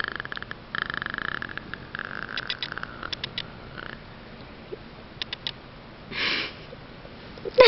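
A small pet animal making the noises the title calls cave noises: a crackly, clicking rasp for the first few seconds, a few scattered clicks, then a short breathy sniff about six seconds in.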